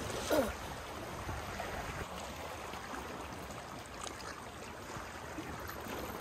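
Calm sea washing steadily against the shore rocks, with a short falling squeak just after the start.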